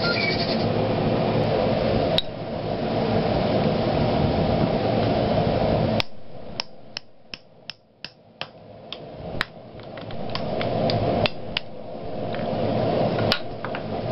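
Rapid light hammer blows, about three a second, on a small handheld D2 steel punch driving a hole through a red-hot 3/8-inch square iron bar on the anvil, starting about six seconds in and running until near the end, with one lone blow about two seconds in. A steady rushing noise runs underneath, cutting out just as the blows start and slowly building back.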